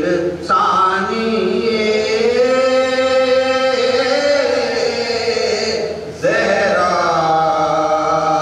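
A man's voice chanting a devotional recitation in long, drawn-out held notes: one sustained phrase, a brief break about six seconds in, then the next phrase begins.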